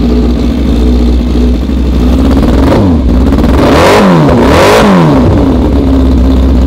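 Kawasaki ZX-6R 636 inline-four engine idling, revved twice in quick succession about three to five seconds in, then settling back to idle. It misfires, running on only two cylinders and sounding like a Ninja 250 twin, because the spark plug leads are connected in the wrong order.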